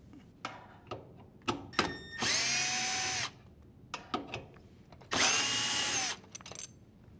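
Quarter-inch drill driver with a 5/16 nut driver bit running twice, about a second each time, backing out two screws from a dishwasher's junction box plate. Each run rises briefly in pitch as the motor spins up, then holds steady. Sharp clicks and knocks of handling come before and between the runs.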